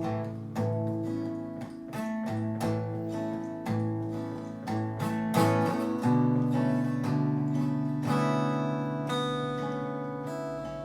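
Acoustic guitar playing alone, notes picked and strummed one after another; about six seconds in a fuller chord is struck and left to ring.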